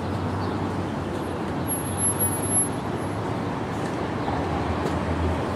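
Angels Flight funicular car running on its rails, heard from aboard: a steady rumble with a low hum, and a thin high whine about two seconds in.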